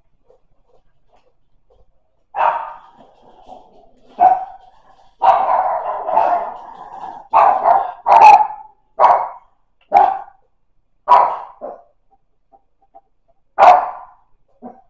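A dog barking repeatedly, about ten loud barks in uneven bursts, one of them longer and drawn out.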